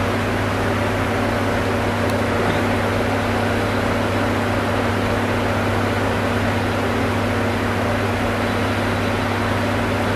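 Steady low hum and even hiss of a ventilation system, unchanging throughout.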